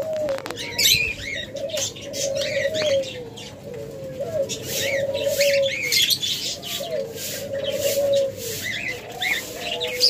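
Diamond doves cooing: a run of soft, low, arched coos repeating and overlapping from several birds, with higher bird chirps mixed in.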